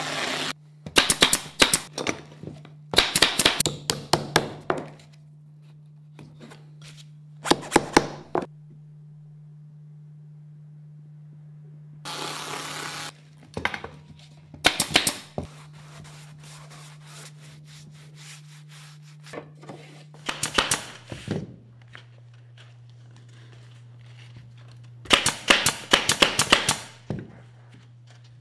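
Bursts of rapid sharp knocks and taps as wooden canvas stretcher bars are worked with hand tools, coming in groups of about a second, six or so times. A steady low hum runs underneath and drops in pitch about 21 seconds in, with a short rushing noise about 12 seconds in.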